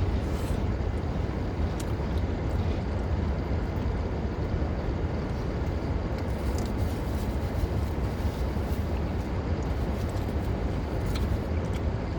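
Steady low rumble of a parked car with its engine running, heard from inside the cabin, with a few faint small clicks.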